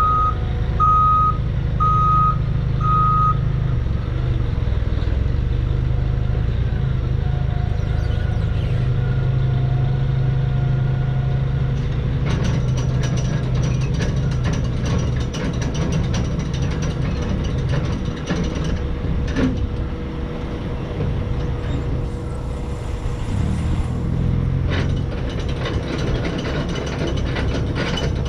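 Forklift backing up, its reversing alarm beeping about once a second for the first few seconds over the steady hum of its engine. From about twelve seconds in there is a long run of rapid clicking and rattling.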